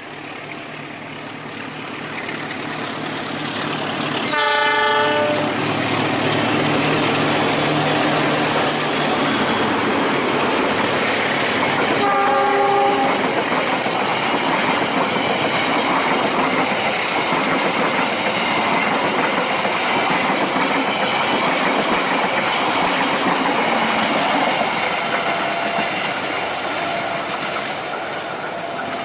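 A diesel-hauled passenger train approaches and passes at speed, its engine growing louder. The locomotive's horn sounds a short blast about four seconds in and another about twelve seconds in. The coaches follow with a steady rumble of wheels on the rails, fading near the end as the train moves away.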